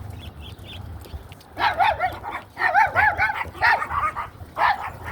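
Dogs barking and yipping in a run of short, high, pitch-bending calls, starting about a second and a half in.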